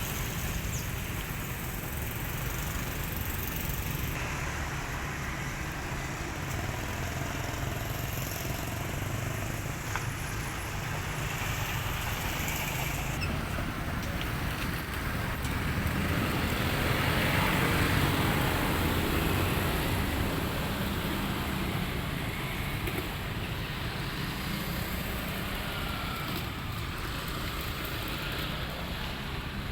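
Steady vehicle rumble with hiss, swelling to its loudest about midway and then easing off.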